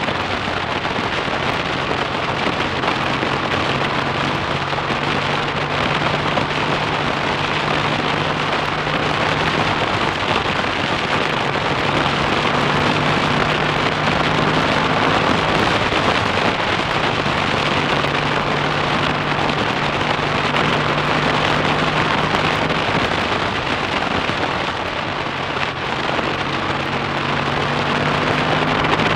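BSA A65 Thunderbolt's 650 cc parallel-twin engine running on the move, heavily overlaid by wind and road noise on the handlebar-mounted microphone. The engine note holds steady for stretches, then fades back and returns a couple of times as the throttle changes.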